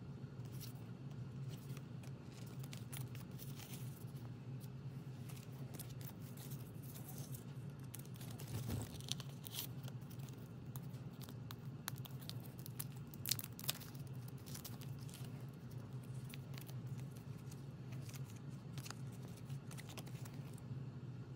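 Photocards and their clear plastic sleeves rustling and crinkling as they are handled, with louder crackles about nine and thirteen seconds in. A steady low hum runs underneath.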